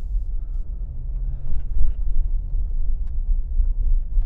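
Steady low rumble heard inside the cabin of a 2024 Subaru Crosstrek Wilderness driving slowly on a dirt and gravel road: engine and tyre noise, with a few faint ticks.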